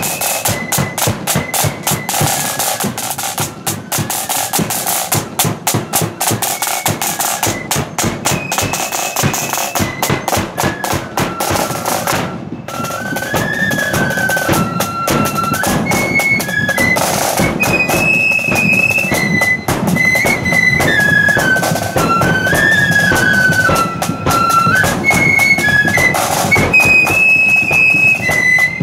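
Marching flute band playing: side drums and bass drum beat out a fast marching rhythm, then after a brief pause about twelve seconds in the flutes take up a high, quick melody over the drums.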